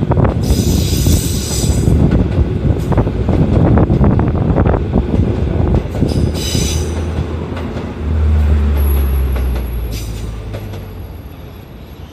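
Tokyo Metro Marunouchi Line train passing over a short bridge, wheels rumbling and clicking over the rail joints, with two brief high-pitched wheel squeals, one about half a second in and one about six seconds in. A deep low hum sets in about eight seconds in, and the sound fades as the train moves away.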